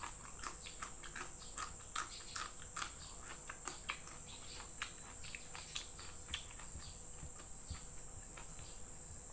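Close-up eating sounds of a raw yardlong bean being bitten and chewed: irregular crisp crunches and mouth clicks, a few each second, over a steady high-pitched background hum.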